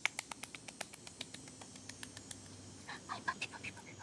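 Kissy, smacking lip noises calling a puppy: a quick run of small sharp clicks, then a few short high squeaks about three seconds in.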